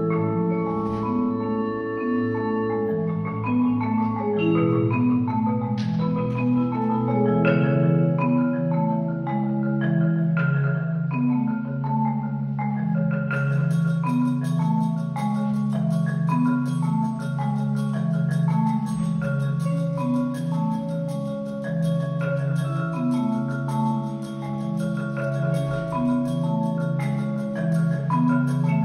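Percussion ensemble playing marimbas and other mallet keyboard instruments: a repeating low marimba pattern runs under shifting melodic notes, and a fast high ticking layer joins about halfway through.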